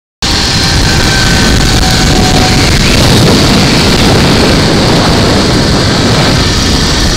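Loud, steady rush of wind on the microphone during a fast zipline run, cutting in and out abruptly, with a faint whine in the first two seconds.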